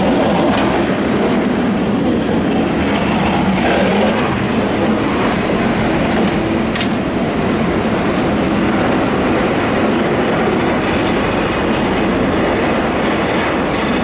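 Steady, loud rumble of a heavy vehicle in motion.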